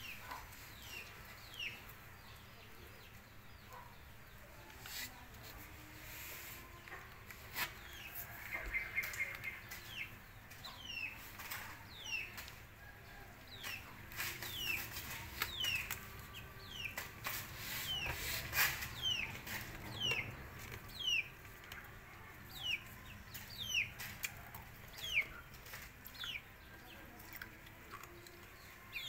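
Chicken calling: short, high calls that fall in pitch, repeated about once a second and coming more often in the second half, with scattered clicks and knocks.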